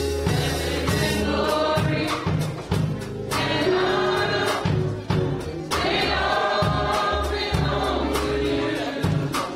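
Gospel choir singing with a band, over steady low notes and frequent sharp percussion hits.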